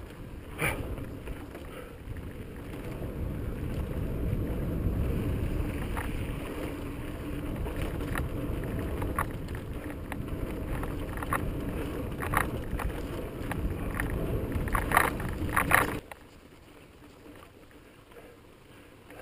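Mountain bike rolling over slickrock sandstone: a steady low rumble of tyres and wind on the microphone, with scattered clicks and rattles from the bike over bumps, several in quick succession, before the rumble drops away abruptly about three seconds before the end.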